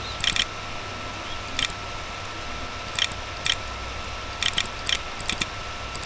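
About ten short, sharp clicks at uneven spacing, one for each letter clicked in on a Windows on-screen keyboard, over a steady low hum.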